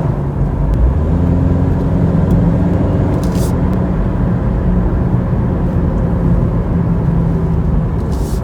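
Steady low rumble of a 2018 Subaru Impreza on the move, heard from inside the cabin: road noise with a drone underneath that the owner takes for a failing wheel bearing.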